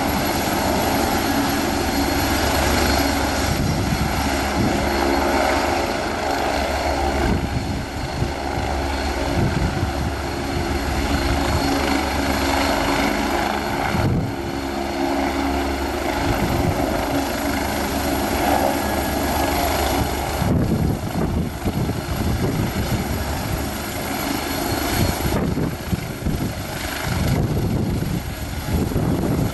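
Agusta A109E Power twin-turbine helicopter running on the ground with its main rotor turning: a steady high turbine whine over the rotor noise.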